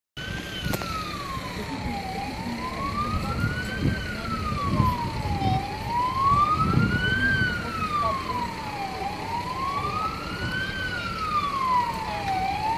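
Emergency vehicle siren in a slow wail, rising and falling about once every three and a half seconds, nearly four full sweeps.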